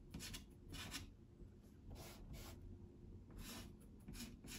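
A pastel stick scraping across sanded pastel paper in a series of short, faint, scratchy strokes, about eight of them.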